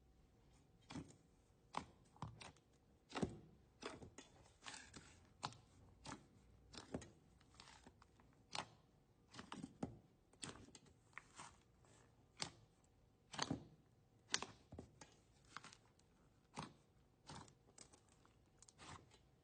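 Slime being played with by hand, making short clicks and pops at irregular intervals, roughly one or two a second, some in quick clusters.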